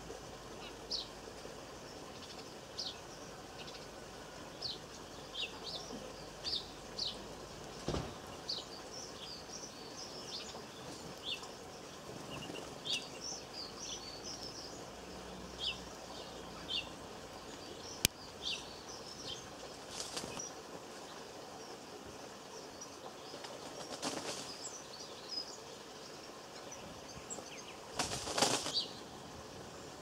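Small garden songbirds giving repeated short, high chirps, with brief flurries of wingbeats as birds fly in and out at a seed feeder, the longest flurry near the end. One sharp click a little past halfway.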